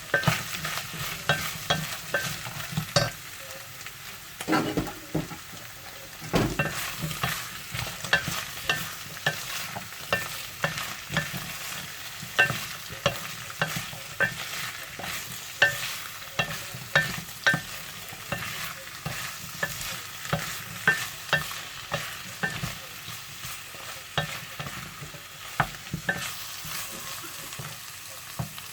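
Pumpkin slices being stirred and fried in a pan of sizzling oil, the spoon or spatula clicking and scraping against the pan about once or twice a second over a steady sizzle.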